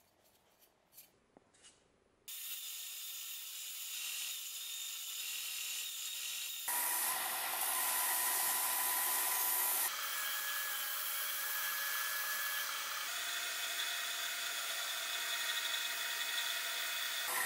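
Bench belt-and-disc sander running and sanding the wooden handle of a corn axe. It starts about two seconds in, after a few light handling clicks, and its tone shifts abruptly several times.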